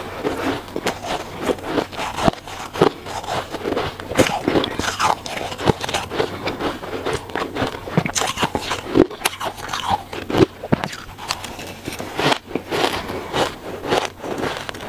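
Soft shaved ice being bitten and chewed, many short crunches in quick, irregular succession, mixed with a metal spoon scraping through the ice in the tub.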